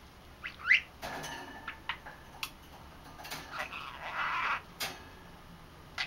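Young budgerigar chattering to itself: a sharp rising chirp about half a second in, then soft warbling chatter broken by a few short clicks.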